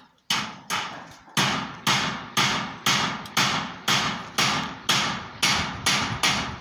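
Hammer nailing into timber roof framing: about a dozen steady blows, roughly two a second, each with a short ring.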